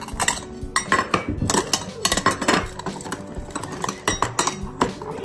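Cat food bowls clinking and clattering at feeding time, with rapid, irregular knocks and chinks.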